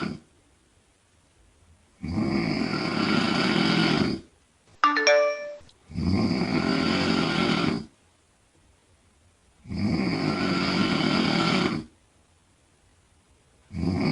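A woman snoring loudly in her sleep, a rasping snore of about two seconds repeating roughly every four seconds, four times, with quiet breaths between. Just after the first snore, a brief electronic chime of a few quick notes.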